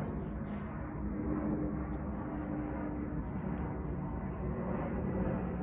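Steady low rumble of an airliner flying in on approach to the airport, with a steady hum through the first half.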